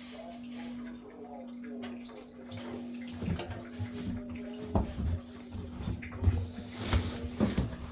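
Washing being loaded into a washing machine drum: clothes rustling, with irregular soft thumps and knocks that get busier from about three seconds in, over a steady low hum.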